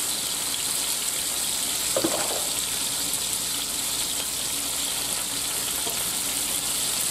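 Chicken pieces sizzling as they brown in hot oil and butter in a frying pan, while more raw pieces are laid in with tongs: a steady frying hiss.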